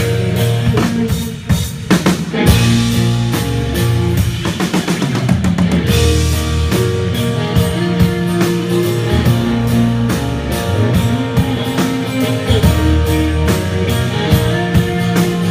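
A rock band playing an instrumental passage: drum kit with bass drum, electric bass and guitar, no singing.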